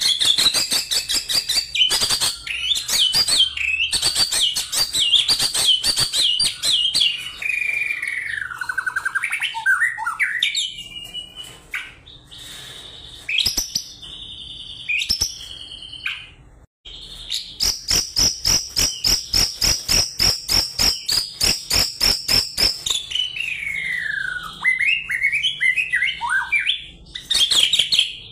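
White-rumped shama singing loudly and continuously: fast repeated high notes and rattling phrases broken by falling whistled glides. In the second half it strings together a run of about four or five sharp notes a second.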